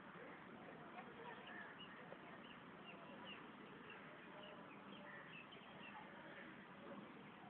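Faint outdoor background hiss with many short, high chirps of small birds scattered throughout.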